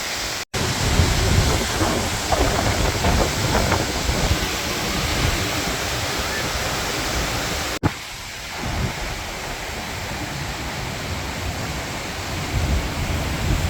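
Steady roar of falling water from a waterfall, with wind gusting on the microphone. The sound breaks off abruptly about half a second in and again a little past the middle.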